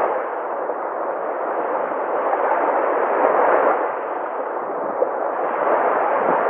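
Ocean waves: a steady rushing wash of surf that swells a little about halfway through.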